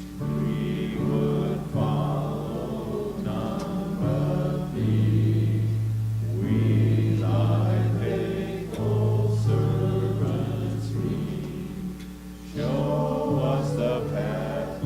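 A congregation singing a hymn together, with instrumental accompaniment holding low notes under the voices.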